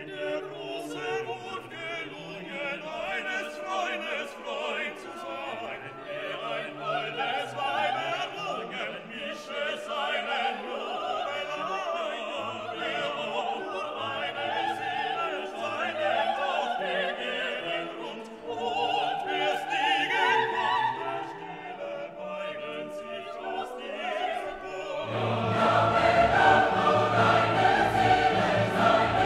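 Background classical music with operatic singing over an orchestra; it swells fuller and louder about 25 seconds in.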